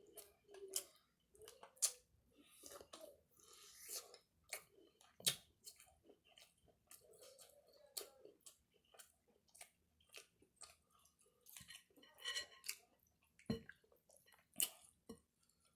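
Close-up chewing and mouth noises: wet smacks and clicks at an irregular pace as food is chewed.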